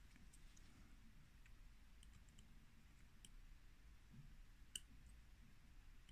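Near silence, with a few faint, sharp clicks of steel watchmaker's tweezers touching a Seiko 6119 automatic watch movement. One click, about three-quarters of the way through, is a little louder.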